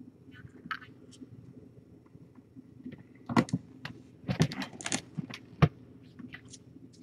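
A quick, irregular run of sharp clicks and knocks from things being handled, bunched between about three and six seconds in, with one loudest knock near the end, over a low steady hum.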